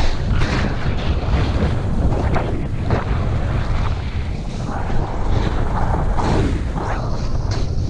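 Wind rushing over an action camera's microphone while snowboarding downhill at speed, a steady deep rumble. The snowboard's edges scrape and hiss over packed, groomed snow in repeated surges as the rider turns, about every second or two.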